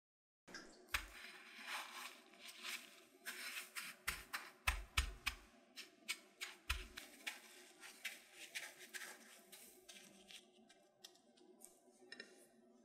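Dry panko breadcrumbs crunching and rustling as a batter-coated corn dog is rolled and pressed into them in a tray, with a few soft thumps. The crackling is busiest in the first half and thins out toward the end.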